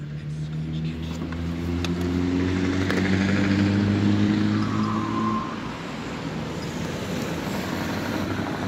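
Scania V8 truck with open, straight-through exhaust pipes pulling away under load. Its deep exhaust note rises gradually in pitch, then cuts off suddenly about five and a half seconds in, leaving the rush of passing traffic.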